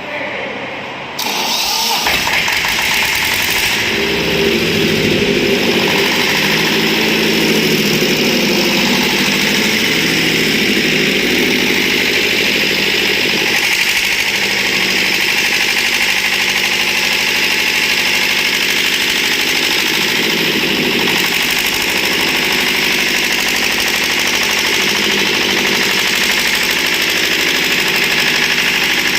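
Diesel engine of a 200 amp welding generator starting about a second in, then running steadily.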